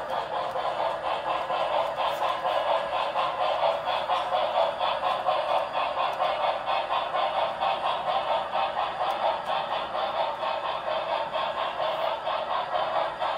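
HO scale model train running along the track, its small wheels and motor making a steady, rapid rattling clatter.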